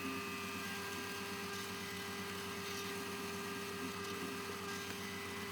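Engineer's drill press motor running steadily, with an even hum.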